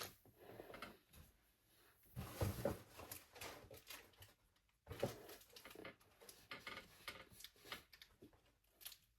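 Faint handling noises from a model locomotive and its plastic packaging being handled: scattered small clicks, taps and rustles, with a busier cluster about two seconds in and another after about six seconds.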